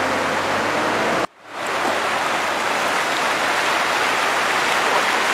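Rushing water of a fast, turbulent creek: a steady, loud rush. It cuts out suddenly about a second in, then fades back up.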